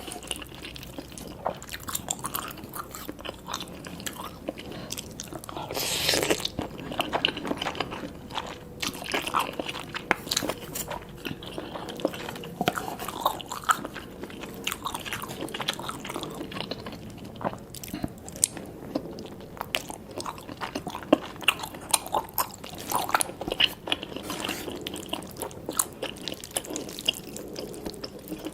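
Close-miked eating of spicy cheese noodles with tobiko (flying fish roe): continual wet chewing and biting with many small clicks, and one longer, louder noisy sound about six seconds in.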